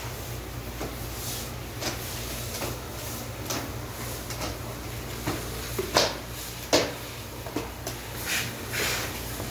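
Floor squeegee scraping and swishing over wet outdoor tiles, with scattered short scrapes and two sharp knocks a little past halfway, over a steady low hum.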